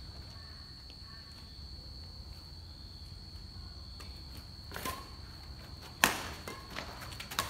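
Badminton rally: a few sharp racket strikes on a shuttlecock in the second half, the loudest about six seconds in, with players' footsteps on concrete. A steady high-pitched whine and a low hum run underneath.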